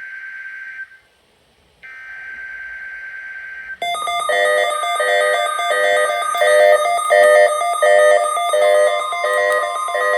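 NOAA Weather Radio SAME header for the required weekly test: a burst of buzzing digital data tones cuts off, and after a pause of about a second a second burst plays for about two seconds. Then a louder electronic alert chime starts, pulsing a little under twice a second.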